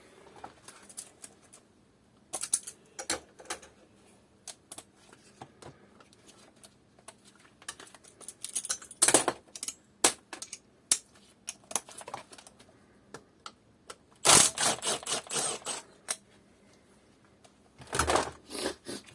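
Ratchet wrench with a socket clicking in rapid runs while bolts on an engine's inlet manifold are undone, between scattered metal clinks of tools and parts.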